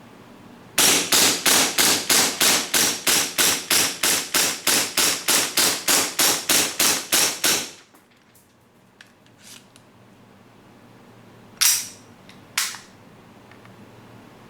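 WE Glock gas-blowback airsoft pistol firing a fast string of about 25 shots, some four a second, each a sharp crack with the slide cycling. After a pause with a few faint clicks, it fires two more single shots about a second apart.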